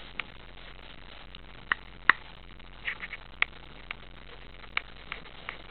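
Sparse small clicks and ticks, about ten of them at uneven intervals, the sharpest about two seconds in, over a steady low hiss.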